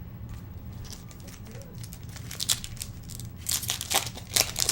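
Foil wrapper of a trading-card pack crinkling and tearing as the pack is opened, in several quick rustles, loudest near the end.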